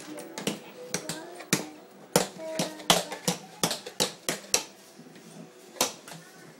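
A toddler's tap shoes clicking on a tiled kitchen floor in uneven steps, about two sharp taps a second.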